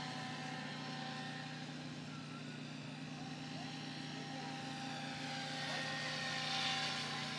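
SAB Goblin 700 electric RC helicopter in flight: a steady motor and rotor whine that grows louder around six seconds in as the helicopter comes closer, then eases off.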